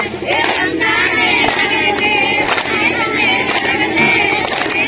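A group of women singing together, with sharp hand claps in unison about once a second, as in a circle clapping dance.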